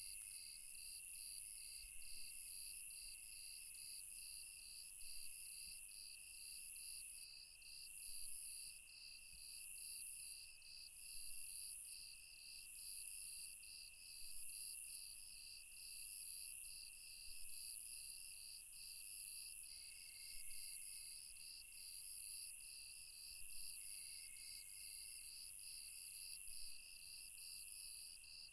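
Night insect chorus of crickets: one chirping in fast, regular pulses over another's steady high trill, with a fainter trill coming and going and a high hiss that rises and falls every couple of seconds.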